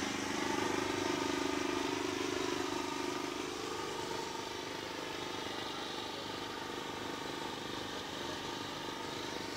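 A small engine running steadily with a droning hum, a little louder in the first three seconds and then settling.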